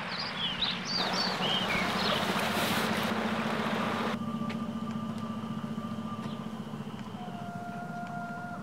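Creekside outdoor ambience: a few bird chirps at the start and the rush of running water, which cuts off abruptly about four seconds in, over a steady low hum. Long held tones come in for the second half.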